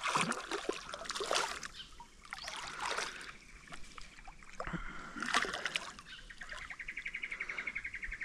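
Water splashing with scattered light knocks and clicks, and a fast, even ticking near the end.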